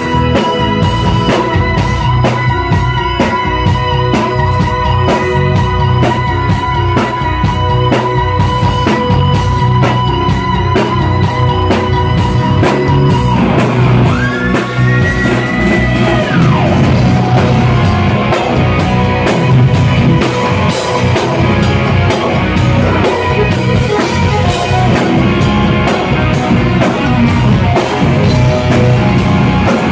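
Live instrumental rock with an electric guitar lead and drum kit. The guitar holds one long wavering note, then about fourteen seconds in bends up to a higher note, holds it for about two seconds and slides back down.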